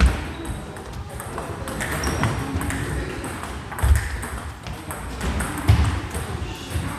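Table tennis ball in play: a run of sharp clicks of the celluloid ball striking the paddles and the table. A few heavier dull thumps stand out about four and six seconds in.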